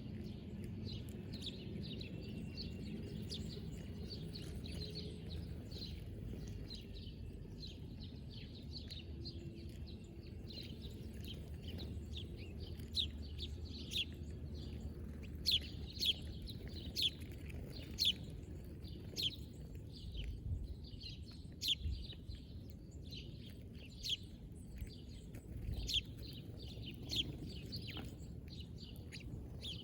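Small birds chirping: a long series of short, high, downward-sweeping chirps, coming about once a second and loudest in the second half, over a steady low background rumble.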